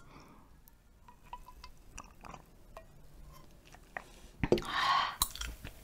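Faint sipping and swallowing sounds and small mouth clicks as makgeolli is drunk from a metal bowl, then a short breathy sound about four and a half seconds in.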